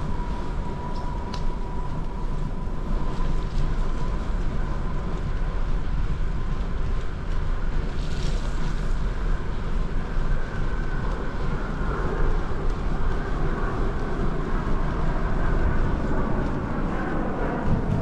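Wind rumbling steadily on the microphone of a moving bicycle, with the bike rolling along a trail.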